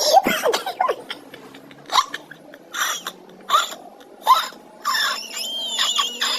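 A young boy's short bursts of laughter and squeaky vocal sounds, about one a second with short pauses between, ending in a longer run of high squeals.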